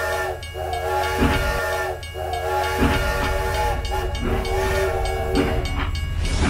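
Toy steam locomotive sounding a steam-train whistle in a series of long toots, each about a second, over a steady low hum.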